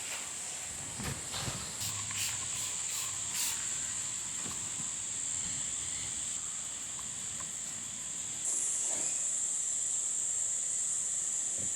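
Steady high-pitched drone of insects, growing louder about eight and a half seconds in, with a few light taps in the first few seconds.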